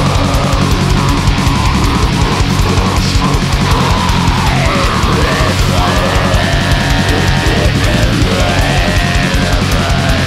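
Black metal song playing loud and dense: distorted guitars over fast drumming, with a wavering melody line above.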